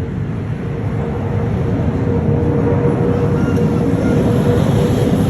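Aircraft engine noise, a loud steady rumble with a faint steady tone running through it, growing louder as the aircraft comes nearer.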